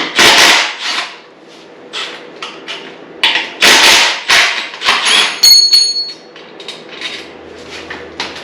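Metal tools and bolts knocking and clanking irregularly while engine mount bolts are worked loose on a dirt bike frame. About five and a half seconds in, a sharp metallic clink rings briefly: a dropped bolt or part hitting the floor.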